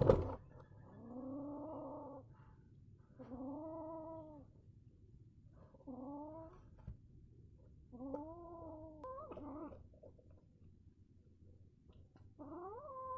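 Angry kitten yowling: about six long, drawn-out wails, each rising then falling in pitch, with pauses between them.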